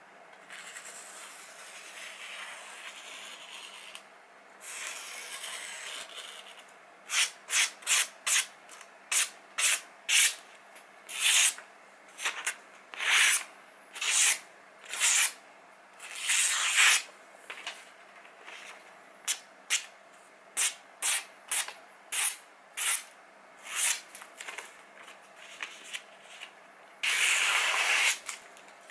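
A kitchen knife slicing through a sheet of catalogue paper in a sharpness test. It makes a fast run of short, crisp papery swishes, one for each cut, after a few seconds of softer rustling, and ends with one longer cut.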